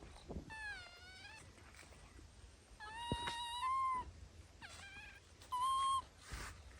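Baby monkey crying in about four short, high, whiny calls that bend in pitch, the longest about a second long, with a few faint knocks between them.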